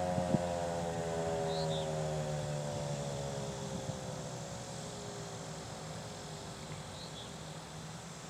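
Federal Signal 2001-SRN outdoor warning siren winding down after shutting off, its tone sliding slowly lower and fading out over several seconds. Two sharp clicks right at the start.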